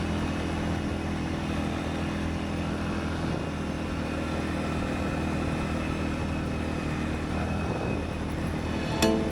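Segway AT5 ATV engine running steadily while riding, with a constant hum and road noise.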